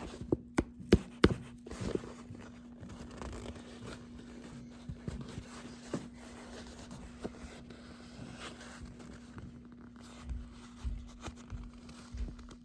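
Handling noise from objects being moved and set down: several sharp clicks and knocks in the first second or so, then scattered faint rustling, scraping and light knocks, over a steady faint low hum.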